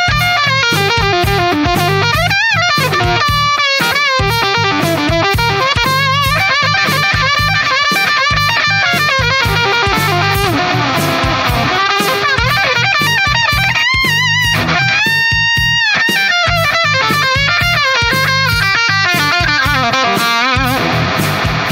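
Instrumental passage of an AI-generated (Udio) rock song: an electric guitar lead plays bending, sliding notes over a steady drum beat and bass.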